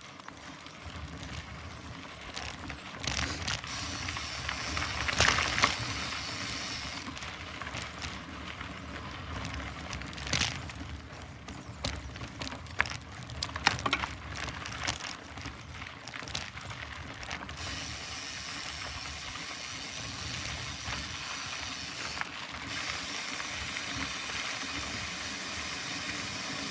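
Mountain bike ridden up a trail: continuous mechanical clicking and rattling from the chain and drivetrain, with tyre noise and a few sharp knocks about 5, 10 and 14 seconds in.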